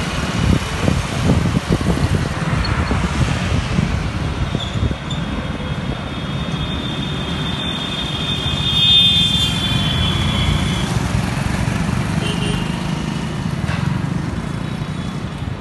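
Road traffic heard from a moving vehicle: a steady low engine and tyre rumble. From about four seconds in, a high-pitched tone holds for about six seconds.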